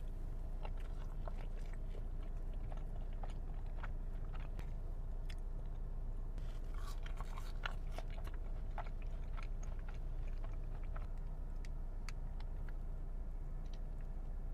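Close-miked chewing of crispy Taco Bell nacho fries, with many small sharp crunches scattered throughout, busiest in the middle. A steady low hum runs underneath.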